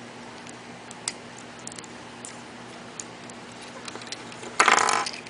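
Small scattered clicks and taps of plastic Lego pieces being handled, over a faint steady hum, with a brief louder rustling noise near the end.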